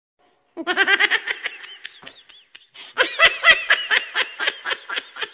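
Laughter starts about half a second in after a brief silence, and goes on in rapid, repeated bursts that rise and fall in pitch.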